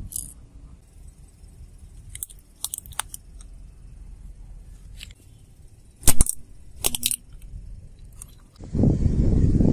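Sharp cracks and crunches of plastic breaking under a car tyre rolling over it on asphalt. The loudest is a double crack about six seconds in, as a flip phone is run over, with another crack a second later. Near the end a steady low rumble starts.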